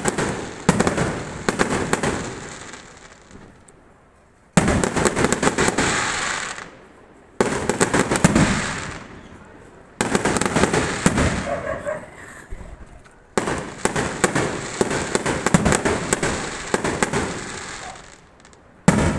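Fireworks crackling and popping in dense rapid volleys. Each volley cuts in suddenly and dies away over a few seconds, about five times.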